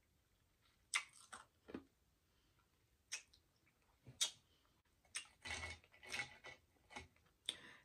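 Sharp, scattered mouth clicks from close-miked chewing, then from about five seconds in a quick run of ice cubes clinking and rattling in a glass as a plastic straw stirs them.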